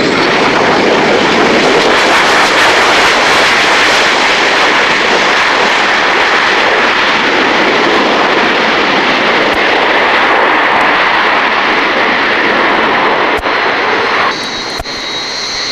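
Panavia Tornado GR1's twin RB199 turbofan engines at takeoff power as the jet rolls down the runway and lifts off: loud, steady jet noise. Near the end it drops abruptly, with a couple of clicks, to a quieter, high-pitched jet whine.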